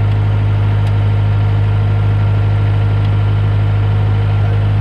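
Bobcat skid steer loader's engine running at a steady, unchanging speed, loud and close.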